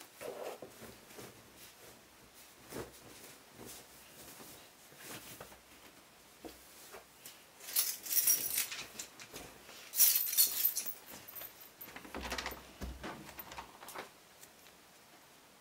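Someone moving about a small room, with scattered soft clicks and rustles of things being handled, two louder metallic jangling bursts about eight and ten seconds in, and a few dull thuds a little later.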